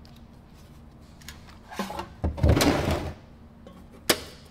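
A lead-acid battery is dragged out of a steel battery box and set down on a wooden workbench with a heavy scraping clatter and thud. Near the end there is one sharp click as the box's lid is shut.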